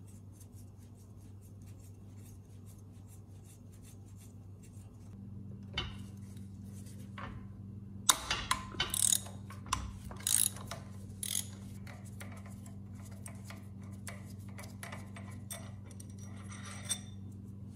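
Hand tools working on a generator rotor's through-bolt: a socket wrench and extension clinking and knocking against the bolt, with a burst of sharp metal clanks a little past the middle and one more near the end, over a steady low hum.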